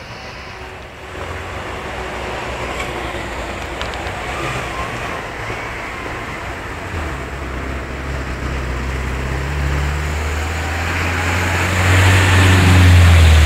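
Pinzgauer off-road truck's engine running as it drives through the mud toward the listener, growing steadily louder and loudest as it passes close by near the end.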